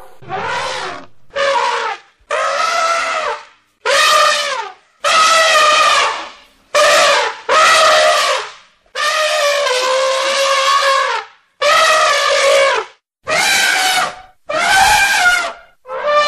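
Background music: a slow melody of about a dozen separate held notes in a reedy wind-instrument sound, each note lasting a second or so with short gaps between them.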